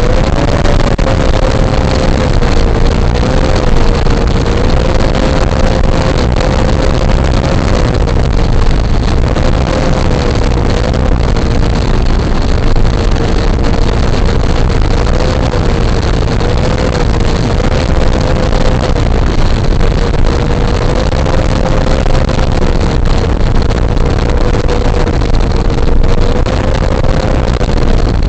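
Electric motor and propeller of a 1:6 scale RC Cessna 182 running at steady throttle: a constant whining tone that wavers slightly in pitch, under a loud rush of wind noise.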